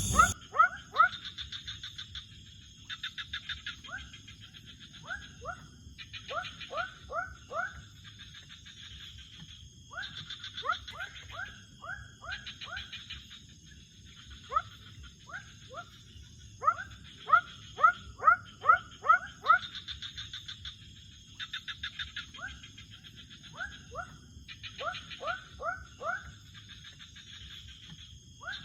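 Night chorus of frogs and insects: runs of three to six short rising chirps alternate with buzzy, rapidly pulsed trills higher up, over a steady high-pitched insect whine.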